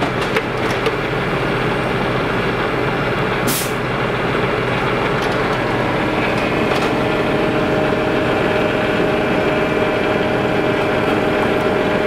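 Heavy diesel truck engine running steadily, with a short sharp air hiss about three and a half seconds in and a steady higher whine joining about halfway through.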